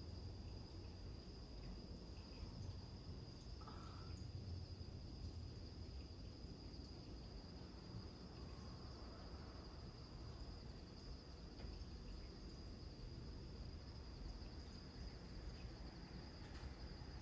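A chorus of crickets trills steadily at two high pitches, over a constant low rumble. A single short call sounds about four seconds in.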